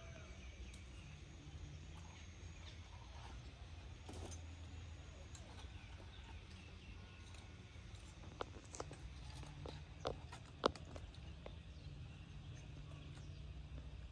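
Quiet outdoor ambience with a steady low rumble and faint bird calls, broken by a handful of sharp clicks or taps about two-thirds of the way through.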